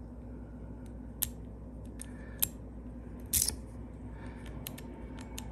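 Irregular sharp metallic clicks from a pick and tension tool working the pin tumblers of a 1988 Ford F250 ignition lock cylinder, which is being picked open without a key. The loudest click comes about three and a half seconds in, over a steady low hum.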